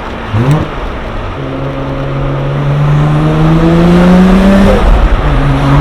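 Nissan Skyline R32 GT-R's twin-turbo RB26 straight-six pulling under acceleration: a quick short rev rise about half a second in, then the engine note climbing steadily for about three seconds, dropping at a gear change near the end and climbing again.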